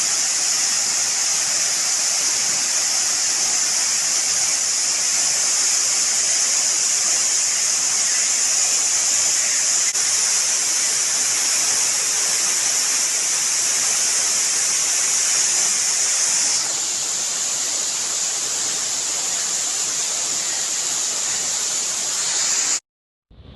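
Waterfall, falling water rushing steadily and loudly. The sound drops a little in level about two-thirds of the way through and cuts off abruptly near the end.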